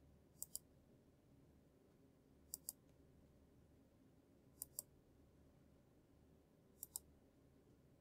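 Computer mouse button clicking four times, about two seconds apart, each click a quick double tick of press and release, as edges are selected one after another.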